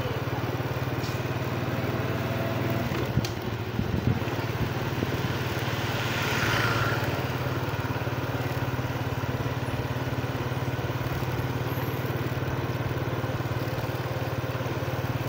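Small motorbike engine running steadily at cruising speed, a constant low hum. A few light knocks come around three to four seconds in, and a brief rush of noise about six seconds in.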